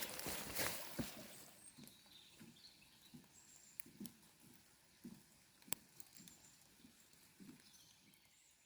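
Footsteps of a hiker on a trail: a run of soft, regular steps that fade as the walker moves away, with a few faint high chirps.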